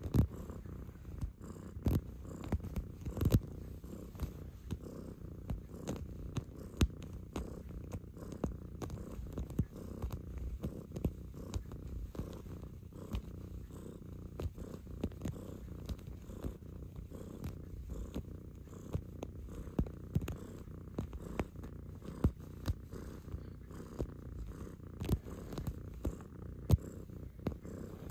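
Black cat purring steadily right at the microphone, with frequent irregular soft clicks and knocks from its paws as it kneads.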